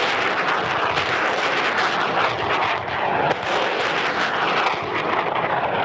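Truck-mounted multiple rocket launcher firing a salvo: a continuous rushing roar of rockets leaving the tubes in quick succession. The hiss dulls somewhat near the end.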